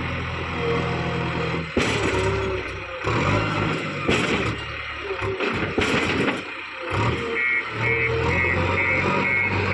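JCB 3DX backhoe loader's diesel engine running under load while working mud, with sharp clanks about two, four and six seconds in.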